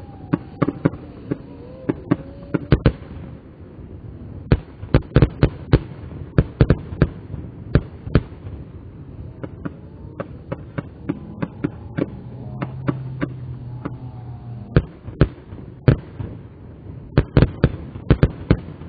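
Fireworks crackling and popping: dozens of sharp cracks in quick, irregular clusters, with a few short lulls, all heard slowed down.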